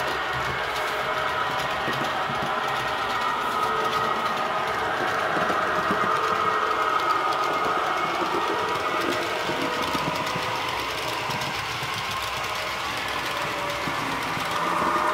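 H0-scale model electric train running along the layout track: a steady whine from the locomotive's motor with rolling noise from the wheels on the rails.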